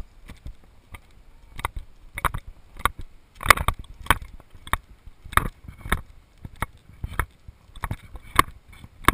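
Footsteps on sand, in an even walking rhythm of a little under two steps a second, each step a short crunch.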